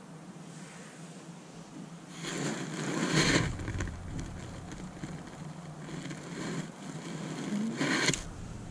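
Clothing rustling as the painter's arm reaches up to the panel, in two bursts: about a second long a couple of seconds in, and a shorter one near the end.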